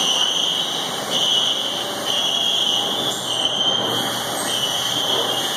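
High-pitched electronic beeping: long beeps of one steady tone, repeating about once a second, over a steady background noise.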